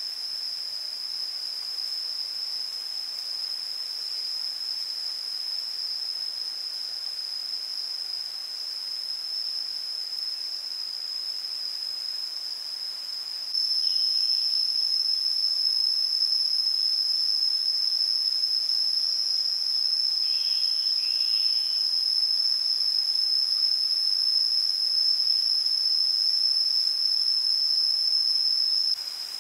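Insects droning in one continuous high-pitched buzz, which gets louder about halfway through and stays so until just before the end.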